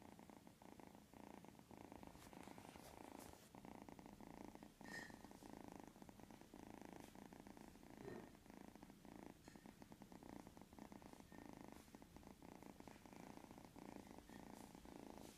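Young kitten purring faintly and steadily, a rapid, even rumble. A couple of faint brief sounds come through, about five and eight seconds in.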